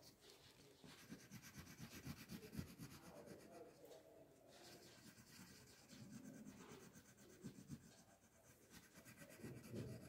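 Faint scratchy rubbing of a black pastel crayon on paper as a patch is coloured in with short strokes, coming in spells with short pauses between.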